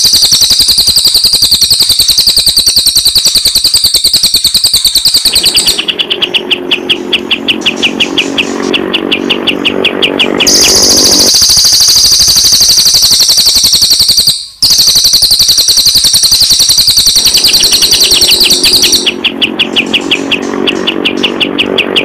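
Two bird species' calls alternating every few seconds: a cililin's high, dense chattering song and a crested jay's (kapas tembak) rapid rattling call of evenly spaced notes, about five or six a second. The rattle comes twice, with a brief break in the sound about two-thirds through.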